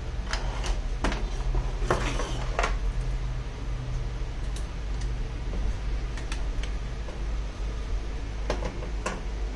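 Scattered light clicks and clinks of small tools and parts being handled on a workbench during a tablet screen repair, most of them in the first three seconds and a pair near the end, over a steady low hum.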